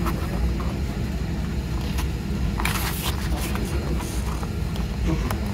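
A page of a glossy photobook is turned by hand, with one paper swish about halfway through, over a steady low rumble.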